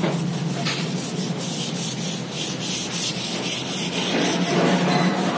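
Sanding strokes repeating several times a second over a steady low machine hum.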